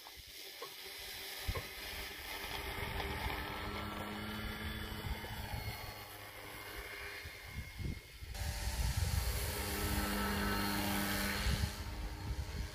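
Radio-controlled Whippit 2 autogyro flying: its motor and propeller give a steady pitched drone that grows louder, jumping up about eight seconds in as the model passes close.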